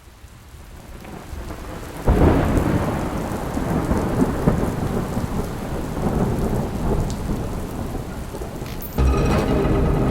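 Rain falling, fading in, then a sudden thunderclap about two seconds in that rumbles on for several seconds. Music comes in near the end.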